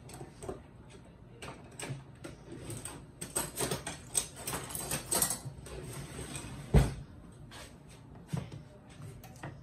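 Scattered clicks, taps and rustles of things being handled, busiest in the middle, with one heavy thump about seven seconds in.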